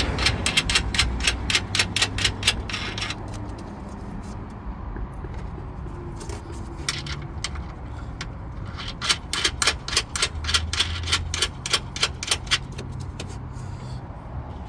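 Hand ratchet clicking in quick runs, about five clicks a second, as the upper strut-mount nuts are turned: one run in the first few seconds and a longer one from past the middle.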